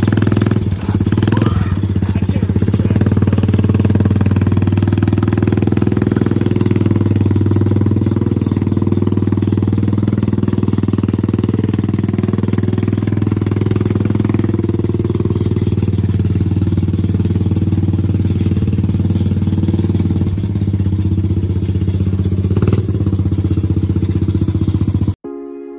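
Small 125cc ATV engine running steadily at an even, unchanging speed, with no revving; the sound cuts off abruptly near the end.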